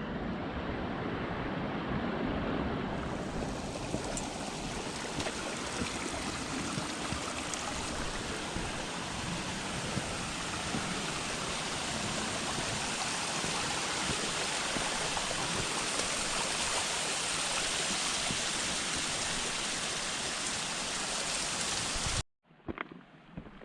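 Mountain stream rushing: a steady, even rush of water. It cuts off sharply near the end, leaving a few faint clicks.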